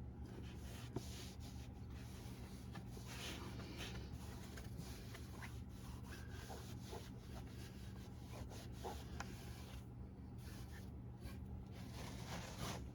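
Faint rubbing and handling as hands press and smooth freshly glued lining material into place, with a few small clicks, over a steady low hum.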